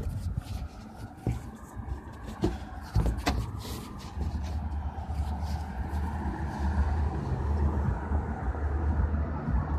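Street traffic: a motor vehicle running, with a steady low rumble that sets in about four seconds in and holds. A few short knocks come in the first few seconds.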